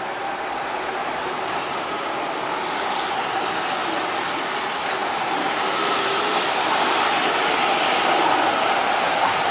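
A city tram rolling past on street rails, growing steadily louder as it comes close. A faint wheel squeal sets in about halfway through as it takes the curve.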